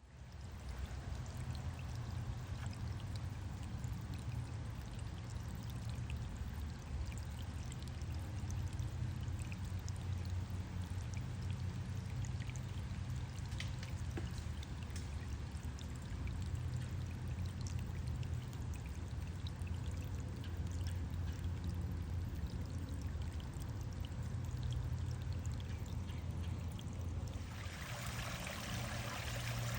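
A woodland stream flowing and spilling over a small waterfall: a steady rush of water with a low rumble and small splashing ticks. About two seconds before the end the water sound turns brighter and hissier.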